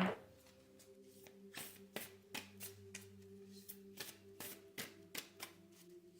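Oracle cards being shuffled by hand: a run of soft, irregular card snaps and slides. Faint steady held tones sound underneath.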